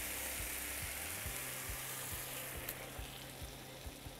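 Fennel and tomato sauce sizzling in a hot pan as water is poured in, a strong hiss that dies down about two and a half seconds in, with a single click as it fades.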